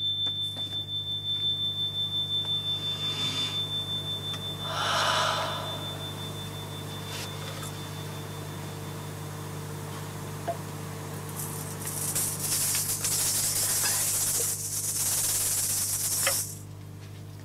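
Experimental electronic sound art: a steady low drone with a high thin tone fading out over the first few seconds, a brief noisy swell about five seconds in, then a loud hiss from about twelve to sixteen seconds that cuts off suddenly.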